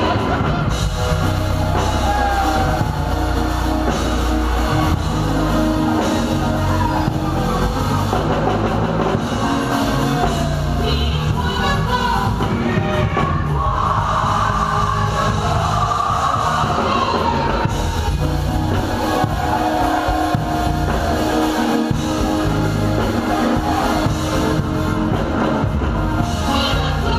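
Live praise and worship band playing: keyboards, organ, bass and drum kit, with singers over them.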